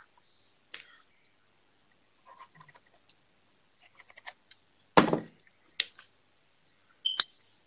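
Hands handling small hard objects close to the microphone: scattered light clicks and clinks, with one loud knock about five seconds in and a few more sharp clicks near the end.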